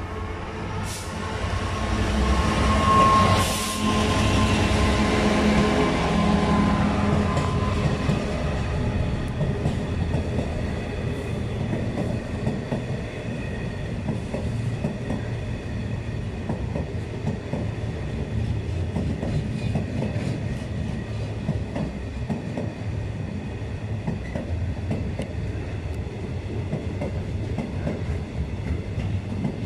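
A Class 66 diesel locomotive passes, its engine loudest a few seconds in, and is followed by a long intermodal container train rolling by with a steady rumble and clatter of wagon wheels on the rails.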